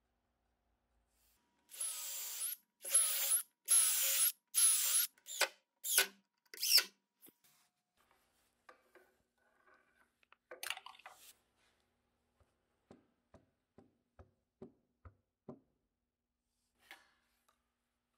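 A woodworking tool worked in about eight short, loud strokes that grow shorter, then a brief rattle and about six light taps half a second apart.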